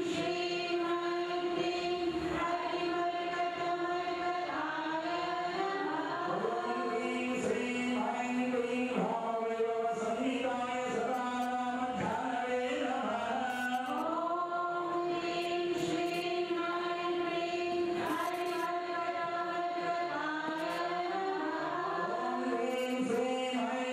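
Voices chanting a Hindu devotional hymn together, in long held notes that step and glide from one pitch to the next.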